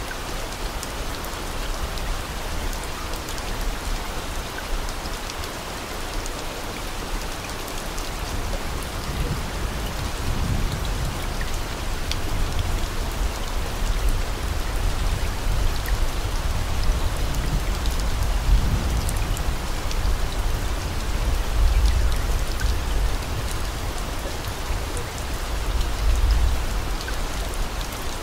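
Steady rain falling on a surface, an even hiss with a low rumble that swells and fades a few times.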